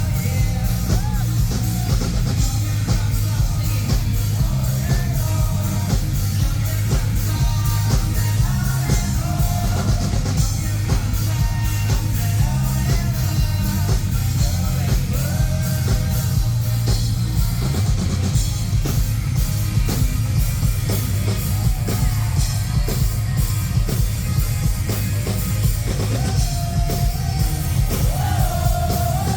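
Live rock band performing: a sung lead vocal over a steady drum-kit beat and heavy bass.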